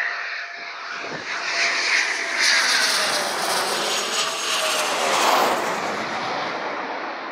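Eurofighter Typhoon's twin jet engines roaring as the jet passes low overhead on landing approach with its gear down. The noise swells twice, and a whine falls in pitch as the jet goes by.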